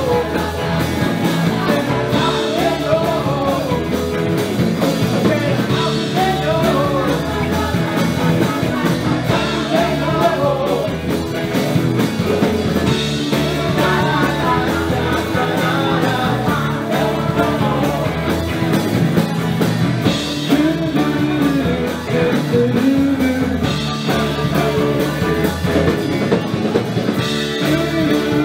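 Live rock band playing a song, with a lead singer over electric and acoustic guitars, keyboard and drums.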